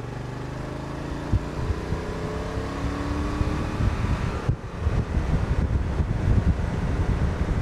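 Honda NT1100's 1084 cc parallel-twin engine accelerating, its note rising steadily for about four seconds. About four and a half seconds in comes a brief dip as the dual-clutch gearbox changes up, and then wind rumble on the microphone grows as the speed builds.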